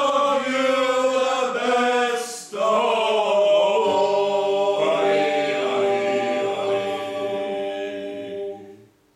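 A small mixed group of men and women singing together in harmony, with a short break about two and a half seconds in and a long held final note that dies away near the end.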